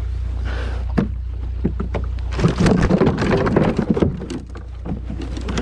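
Handling noise on a fishing kayak: a dense run of knocks and scraping against the hull in the middle, then scattered clicks, over a steady low rumble.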